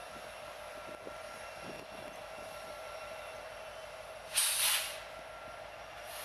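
EMD diesel locomotives running with a steady hum and whine; a little over four seconds in, a loud, short blast of air hisses for about half a second.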